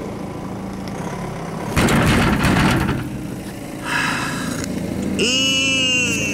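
Prize-pusher arcade machine: a steady electric hum, then a burst of noise about two seconds in. Near the end come electronic tones that slide up and down in pitch.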